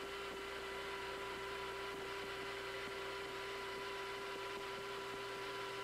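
Steady electrical hum with a few fixed tones over an even hiss, unchanging throughout; no rocket launch sound is heard.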